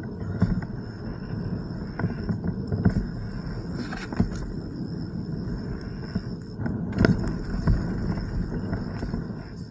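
Mountain bike riding over a dirt trail: steady tyre rumble on the ground with frequent knocks and rattles from the bike, and a couple of harder jolts about four and seven seconds in.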